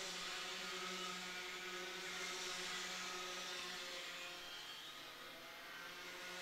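Two-stroke Rotax Mini Max kart engines of a pack of karts buzzing at racing speed, a little louder in the first few seconds and easing off toward the end.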